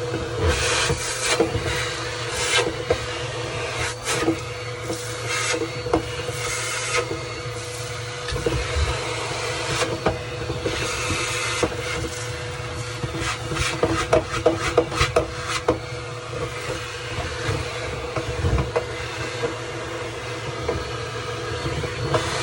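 Vacuum cleaner running steadily while sucking lint and dirt out of a clothes dryer, with irregular scraping and clicking as the nozzle works over the inside; the clicks come thickest a little after halfway.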